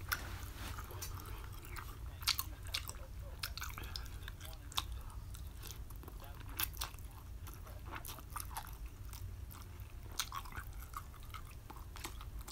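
Close-up eating sounds of a man chewing ramen noodles: wet chewing with many short, irregular smacks and clicks.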